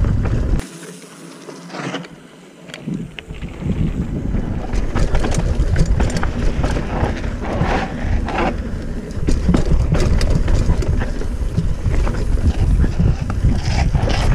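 Wind buffeting a helmet-mounted action camera's microphone as a hardtail mountain bike runs fast down a rough dirt trail, with rattles and knocks from the bike over bumps. The wind rumble drops away briefly near the start, then returns.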